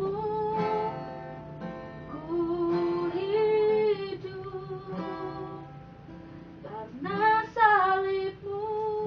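A woman singing solo to her own strummed acoustic guitar, in phrases with long held notes and a lull in the voice about midway.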